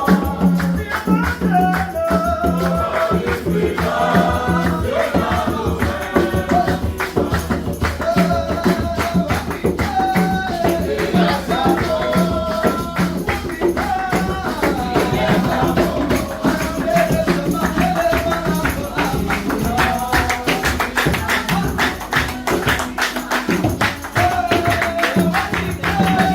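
Gospel worship music: a wavering melody line over a steady bass, driven by a fast tambourine and shaker rhythm.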